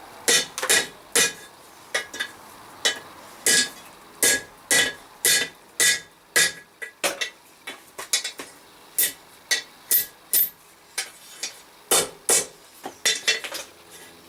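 Hand hammer striking a hot 10 mm square steel bar on an anvil, about two blows a second with a bright ringing note, some blows lighter than others: reworking a bend in the bar that had gone crooked.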